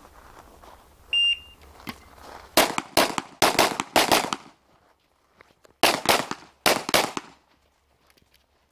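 A shot timer's single start beep, then a Glock pistol fired in a rapid string of about six shots; after a pause of about a second, a second quick string of shots.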